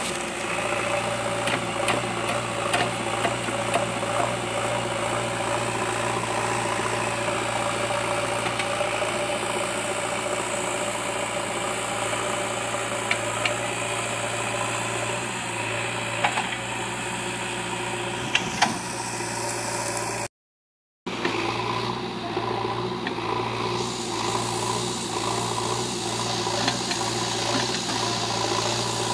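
JCB backhoe loader's diesel engine running steadily, with rattling and a few sharp metallic knocks from the machine. The sound cuts out completely for under a second about two-thirds of the way through.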